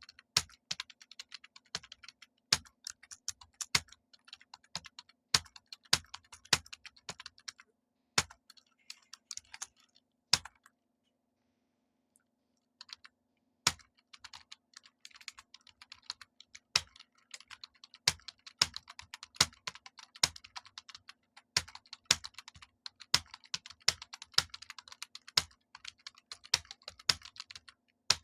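Fast typing on a computer keyboard, a quick stream of key clicks with louder strokes every second or so. The typing pauses for about three seconds near the middle.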